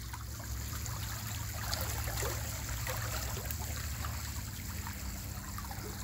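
Inflowing water churning and trickling at the surface of a sea crab pond: a steady rush of water with many small splashes, over a steady low hum.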